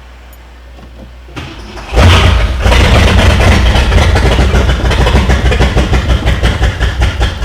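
1966 Ford Thunderbird's V8 engine being started on jumper cables: the starter turns it over and it catches about two seconds in, then runs loud and uneven with no exhaust system fitted.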